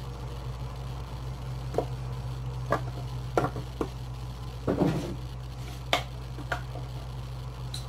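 Kitchen utensils and containers being handled on a countertop: about eight short, sharp knocks and clicks at irregular intervals, with a small clatter about halfway through, over a steady low hum.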